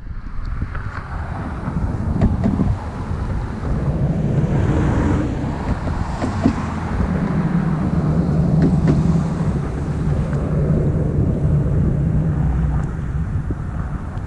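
Wind buffeting the microphone, with a steady low rumble underneath and a few faint ticks.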